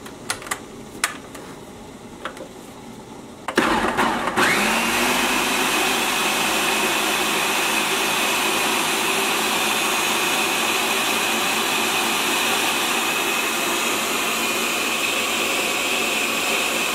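Ninja countertop blender starting about three and a half seconds in, its motor whine rising as it spins up, then running steadily while puréeing boiled soup vegetables. A few clicks come before it starts.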